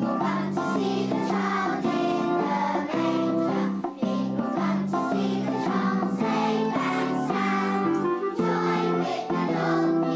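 A group of young children singing a song together, with keyboard accompaniment.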